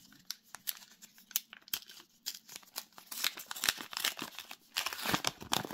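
A trading-card booster pack wrapper being crinkled and torn open: a run of irregular crackles, busiest from about three seconds in.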